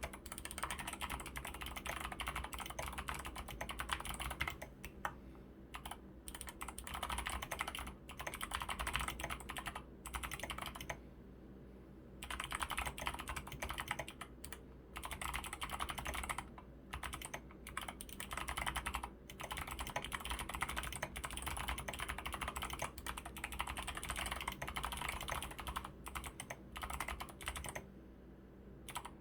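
Fast, continuous typing on a DROP CTRL High-Profile mechanical keyboard with lubed Kailh Box Pink clicky switches, lubed stabilizers and SA keycaps: a dense run of keystroke clacks and clicks, broken by two brief pauses, one about eleven seconds in and one near the end.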